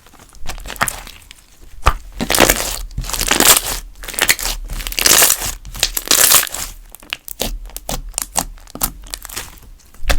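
Hands squeezing and stretching a galaxy slime: sticky crackles and clicks, with longer squishing stretches about two and five seconds in.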